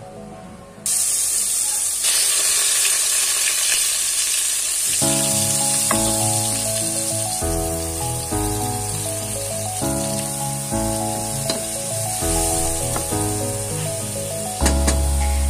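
Grated onion, ginger and garlic sizzling as they fry in hot oil in a pot, starting suddenly about a second in and going on steadily. Background music comes in about five seconds in.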